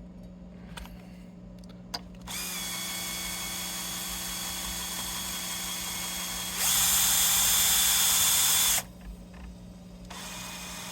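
A power string winder spinning a Stratocaster tuning peg to wind on a new string. Its motor whirs steadily for about four seconds, then speeds up, louder and higher, for about two more seconds and stops suddenly. A few small handling clicks come before it.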